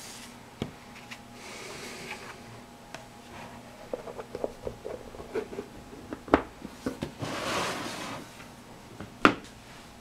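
Handling noises of a small plastic project box being closed and picked up: rustling, small clicks and a few sharp knocks, the loudest knock near the end.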